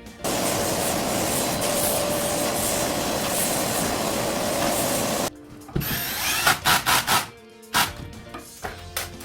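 A power tool runs steadily for about five seconds and stops abruptly, followed by a series of irregular scraping strokes, over faint background music.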